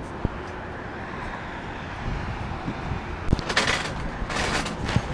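Street ambience with a steady low traffic rumble. A few short knocks and two brief rustling noises come in the second half.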